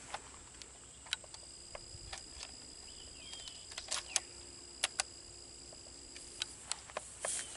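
Scattered light clicks and taps, about ten spread over several seconds, from a Savage 110 bolt-action rifle being handled and loaded by hand one cartridge at a time.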